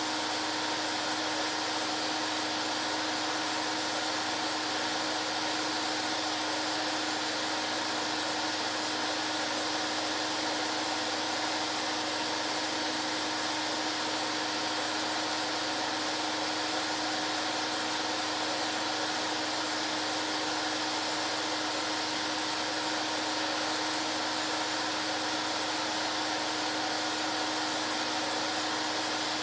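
Home-movie film projector running: a steady motor whir with a constant hum that does not change.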